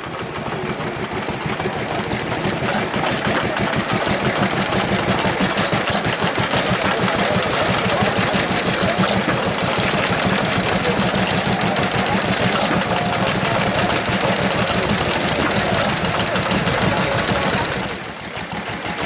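Small vintage stationary engines running with a fast, steady beat of firing knocks that builds up over the first few seconds.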